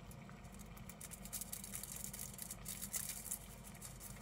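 Faint crinkling and scratching of aluminium foil as a syringe needle scrapes spores off a spore print, a dense run of fine crackles heaviest in the middle stretch, over a low steady hum.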